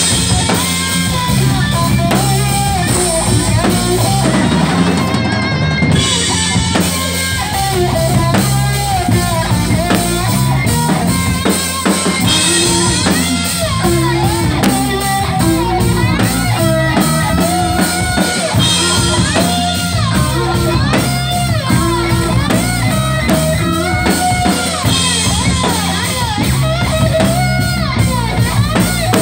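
Live rock band playing loudly: a pounding drum kit with heavy bass drum, electric guitar and bass, with a singer's voice wavering over the top.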